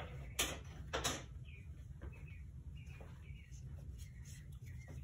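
Quiet room tone with a steady low hum, two short knocks about half a second and a second in, and a few faint short chirps after that.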